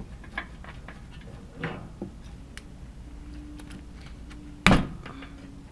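Light clicks and taps of parts being handled while the water inlet valve of a dishwasher is reconnected, with a small knock early on and one sharper knock near the end.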